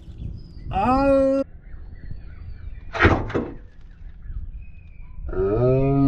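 A man's drawn-out groans of effort, two long ones that rise and then hold, with a sharp breath between them, as he strains to work loose a stuck oil drain plug.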